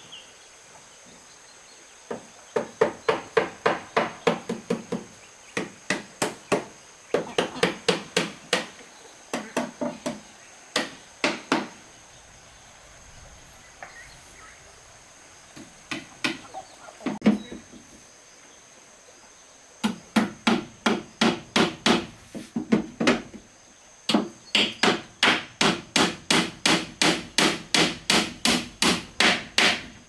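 Hammer blows on a wooden cupboard frame, driving nails: quick runs of strikes at about four a second, broken by short pauses, with the longest run near the end.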